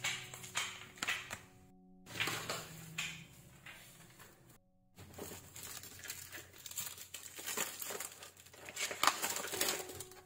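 Plastic-wrapped packs of facial tissue crinkling and rustling as they are handled and pushed into a woven basket, with many small crackles and light knocks.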